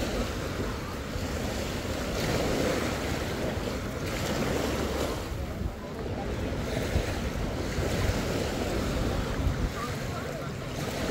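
Small waves washing up onto a sandy beach, swelling and falling back every few seconds, with wind rumbling on the microphone.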